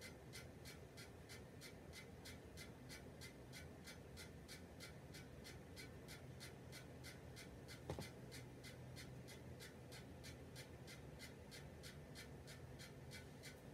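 Near silence: a ceiling fan running, with faint even ticking about four times a second over a low hum. There is one small click about eight seconds in.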